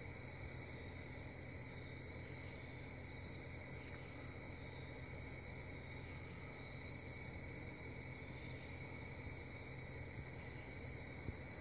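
Crickets chirping in a steady, unbroken chorus over a low, constant hum.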